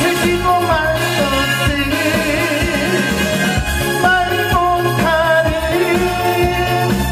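Male singer singing a Korean song live into a microphone over a musical accompaniment with a steady bass beat, amplified through a PA.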